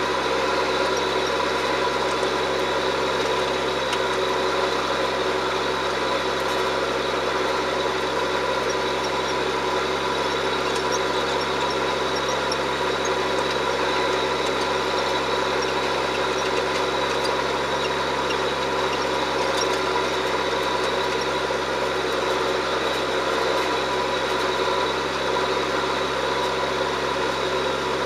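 John Deere 7710 tractor's six-cylinder diesel engine running steadily while pulling a reversible plough.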